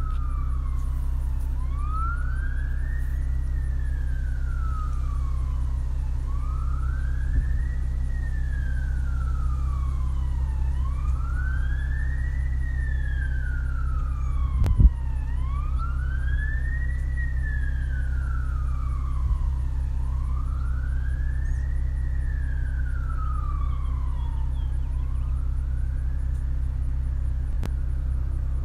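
Emergency vehicle siren wailing in the distance, a slow rise and fall in pitch repeating about every four to five seconds, as it heads to an emergency call. A steady low hum runs underneath, and a single sharp knock comes about halfway through.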